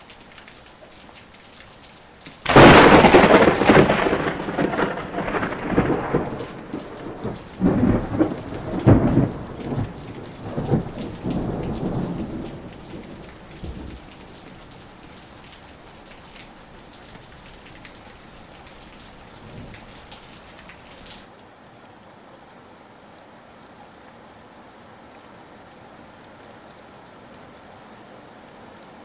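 Steady rain with a sudden loud thunderclap a few seconds in. The thunder rolls on in several waves for about ten seconds and fades, leaving the rain.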